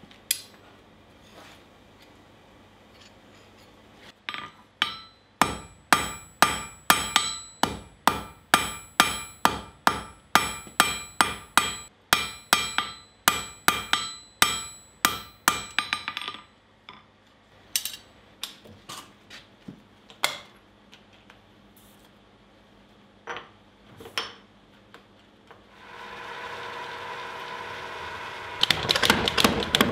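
Hand hammer striking red-hot steel bar stock on an anvil, about two ringing blows a second for some ten seconds, then a few scattered blows. Near the end a power hammer's motor starts up, and rapid repeated blows follow.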